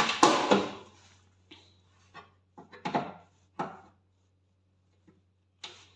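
Irregular sharp knocks and taps, about eight of them and loudest at the start, as a tool works at the sealed, moulded convection fan of a microwave oven to force it out.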